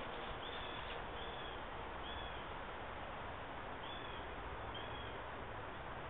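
Steady wind noise, with five short, high-pitched chirps scattered through it.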